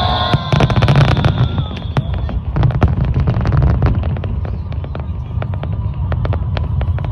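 Aerial fireworks display: a dense run of sharp cracks and pops over a continuous low rumble of bursting shells.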